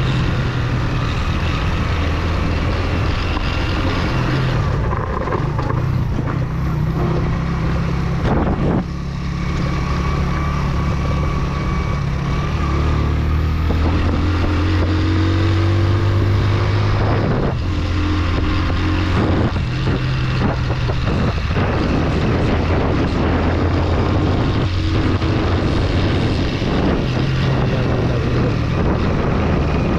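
Motorcycle engine running while riding off-road uphill, its pitch stepping up and down as the throttle and gears change.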